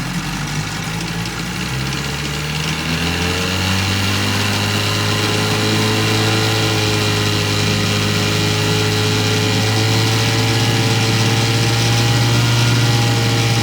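1962 Sea King 5 hp two-stroke outboard motor, freshly rebuilt, running: it picks up speed over the first few seconds, then runs steadily at a higher speed.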